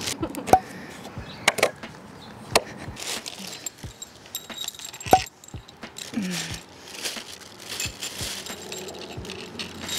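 Metal carriage bolt clicking and clinking against a PVC pipe sleeve and wooden frame as it is handled and pushed through a drilled hole. A few separate sharp clicks with a short ring, the loudest about half a second and five seconds in.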